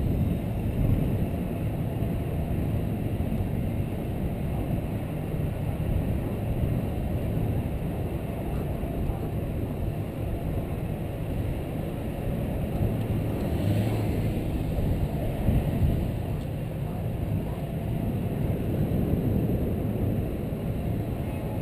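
Wind buffeting the microphone of a camera mounted outside a moving 2013 Jeep Wrangler JK, a steady low noise with the Jeep's engine running beneath it as it drives over soft beach sand.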